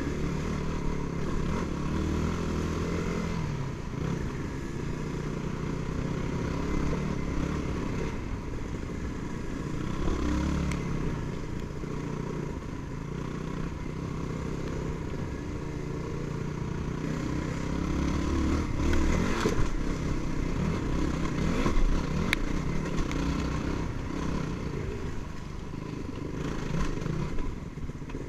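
Yamaha WR250R's 250 cc single-cylinder four-stroke engine running on a dirt trail, its revs rising and falling with the throttle. A few sharp knocks from the bike going over rough ground.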